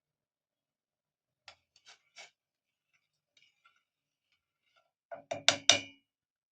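Spoon tapping against a cooking pot while honey is stirred into a boiled ginger, turmeric, garlic and lemon drink: three light taps, then a quick run of louder clinks with a brief ring near the end.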